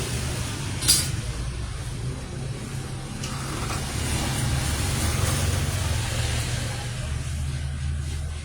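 A steady low rumble, with one sharp click about a second in.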